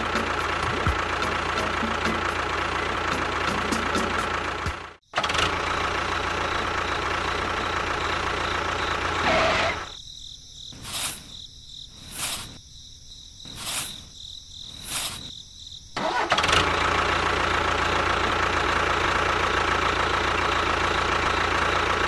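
Small motor of a DIY mini tractor running with a steady whine, cut off abruptly for a moment about five seconds in. From about ten to sixteen seconds it falls away and four short high-pitched sounds come about a second and a half apart, then the motor runs again.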